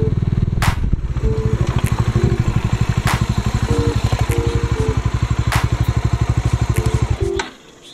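Motorcycle engine running with an even, rapid pulse, then cut off abruptly about seven seconds in, with a few sharp clicks over it.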